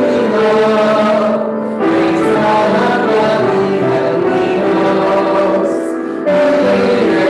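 A choir singing a hymn in long, held phrases, with short breaths between phrases about a second and a half in and about six seconds in.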